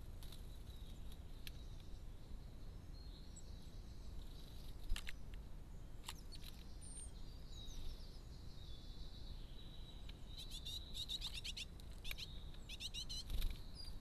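Small garden songbirds chirping and calling at a seed tray, with short high chirps scattered through and a quick run of rapid calls near the end, over a steady thin high-pitched tone. A couple of soft bumps, one about five seconds in and one just before the end.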